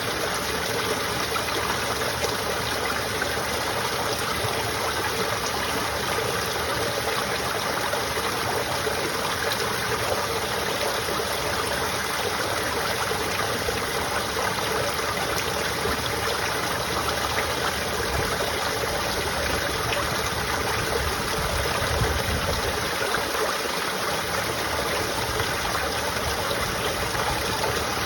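Water trickling and falling into a storm drain, a steady splashing flow.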